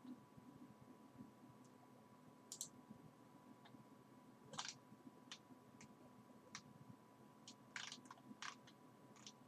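Near silence: quiet room tone with a handful of short, faint clicks scattered through it.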